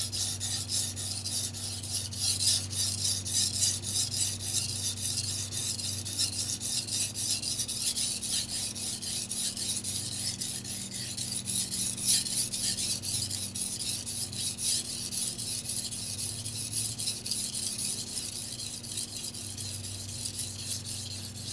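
Tojiro 150 mm petty knife, Shirogami white steel No. 2, being stroked rapidly back and forth on a wet whetstone: a steady, rhythmic grinding rasp of steel on stone as the edge bevel is sharpened.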